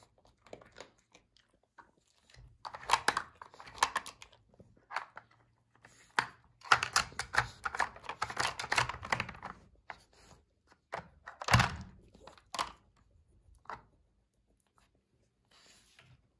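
Dog working a plastic treat puzzle with its nose and paws: bursts of clicking and clattering as the plastic lids and blocks are knocked and flipped, with one louder thunk about two-thirds of the way through, and chewing of treats.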